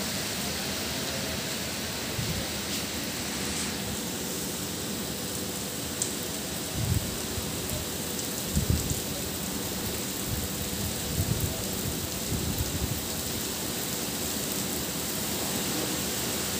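Steady hiss of rain, broken by several short, low rumbles about seven to thirteen seconds in.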